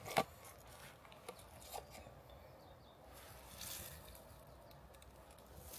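Faint handling noises from the people holding a field mouse: a sharp click just after the start, two light clicks between one and two seconds in, and a soft rustle around three to four seconds in.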